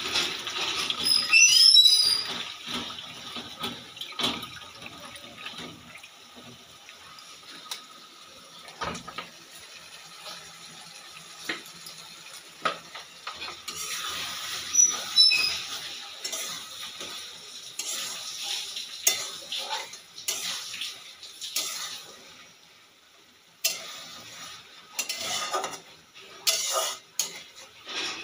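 Metal spatula stirring and scraping crabs in masala in a steel wok, with repeated clinks and scrapes against the pan over the sizzle of the frying masala.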